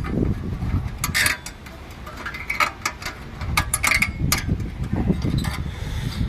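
Irregular sharp metallic clicks and clinks as needle-nose pliers press and twist the hold-down spring and retainer of a Mercedes W202 rear parking-brake shoe off its pin.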